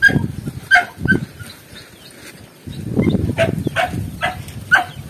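A dog barking in short, sharp yaps: a few near the start, then about two a second from halfway on. Low rustling underneath from footsteps through corn plants.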